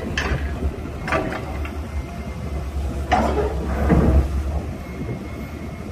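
Heavy diesel engines of a crawler crane and a long-reach excavator running steadily as they lower a sunken excavator onto the bank. Several metallic clanks and scrapes sound over the engine drone, the loudest around three to four seconds in.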